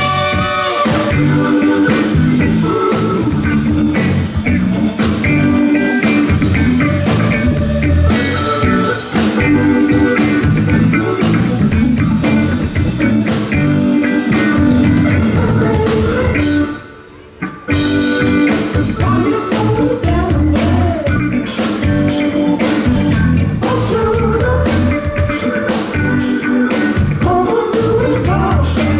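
Live funk band playing full out on a loud stage system, with drum kit, bass, guitar and a voice singing. About 17 seconds in the music stops dead for about a second, then the band comes back in.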